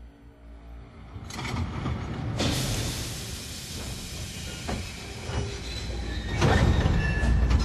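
Class 52 two-cylinder steam locomotive starting away: a loud hiss of steam from the cylinder drain cocks sets in about two and a half seconds in, and from about six and a half seconds in heavy exhaust chuffs and a low rumble come in as it moves off.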